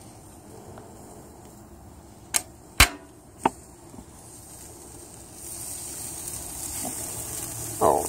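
Three sharp clicks, the second loudest. Then, about five and a half seconds in, a steady hissing sizzle starts and holds: bratwursts sizzling on a charcoal kamado grill as its lid is opened.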